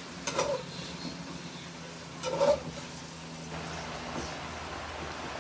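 Sliced bell peppers and onions sizzling in a frying pan, with a metal spoon scraping and knocking against the pan twice as the vegetables are stirred.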